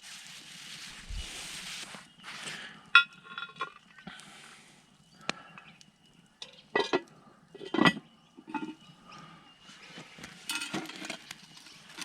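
Metal cookware and utensils clinking and clanking during camp-oven cooking: a rustle first, then a ringing clink about three seconds in, and two sharper clanks near the middle, with scattered lighter knocks.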